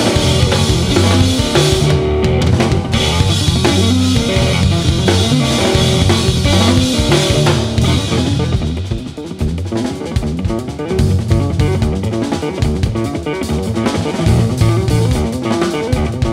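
A rock trio playing live: drum kit, electric guitar and bass guitar. After about eight seconds the cymbal wash thins out and the band drops into a sparser passage, with a brief dip in loudness before it builds again.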